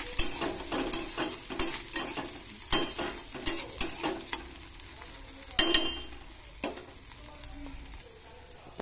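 Diced vegetables sizzling in oil in a metal kadai while a metal spatula stirs and scrapes them against the pan, with the loudest scrapes a little before six seconds and the stirring tailing off after that.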